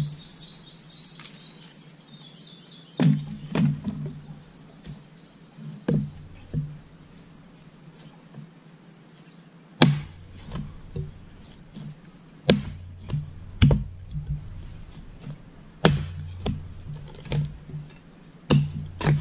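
Axe blows chopping into firewood: about a dozen sharp chops at irregular intervals, the loudest about ten seconds in. Birds chirp near the start.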